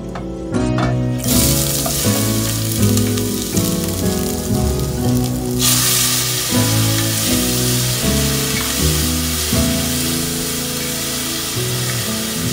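Food sizzling in a hot enamelled cast-iron pot, jumping much louder a little before halfway through as chopped tomatoes are tipped into the hot fat and stirred with a wooden spatula.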